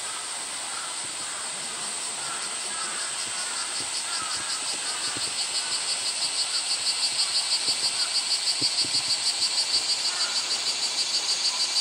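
Summer cicadas in a steady high-pitched chorus. A pulsing call of about three pulses a second swells in from the middle and becomes the loudest sound.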